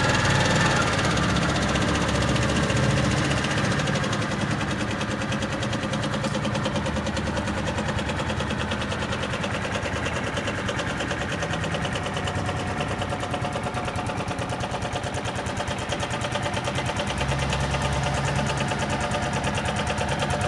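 Suzuki Gemma 125 scooter engine idling steadily, with a fast, even firing beat that dips slightly in loudness for a while and then picks up a little.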